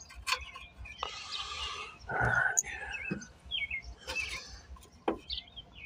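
Birds chirping several times, with a few sharp knocks and clicks and two short hissing noises.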